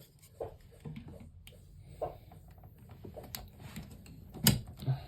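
Small plastic clicks and handling noises as a USB cable and portable charger are handled and plugged into a wall charger's USB port. There are scattered light taps and one louder, sharper click about four and a half seconds in.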